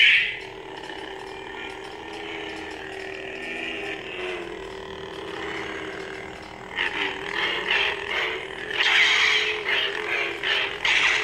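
Hasbro Force FX lightsaber's electronic sound effects from its speaker: a steady buzzing hum, then from about seven seconds in, swing sounds that swell and fade in quick surges as the hilt is moved.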